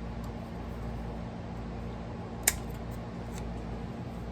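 Steady low hum of room noise, with one sharp click about halfway through and a couple of faint ticks after it.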